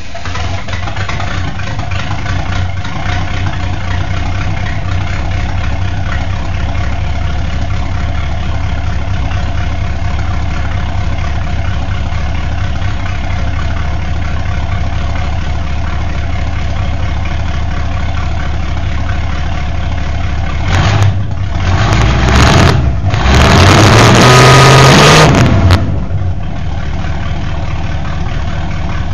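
Chevy 307 small-block V8 in a demolition derby car, running loud through short open header pipes while its ignition timing is being set. It idles steadily, then about 21 seconds in it is revved several times in rising sweeps, loudest a little later, before dropping back to idle.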